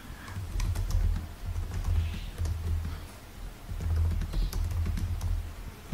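Typing on a computer keyboard: an uneven run of key clicks as a short sentence is typed.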